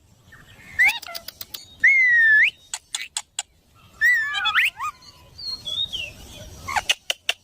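A parrot whistling and chirping in short gliding calls. The loudest is a held whistle about two seconds in that dips and then rises sharply, and sharp clicks come between the calls.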